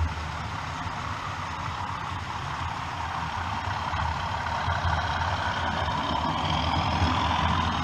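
OO gauge model diesel locomotive and its hopper wagons running along the track, getting louder as the train comes closer, with a rising whine in the second half.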